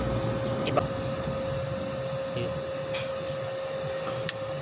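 A steady mechanical hum at one pitch over a background noise, with a few light clicks and taps.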